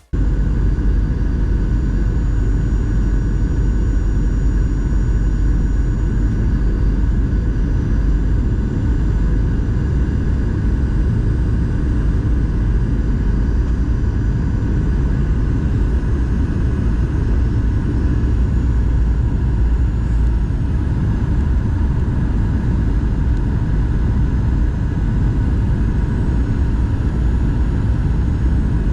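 Airliner cabin noise in flight: a steady low rumble of engine and airflow noise with faint steady whining tones above it.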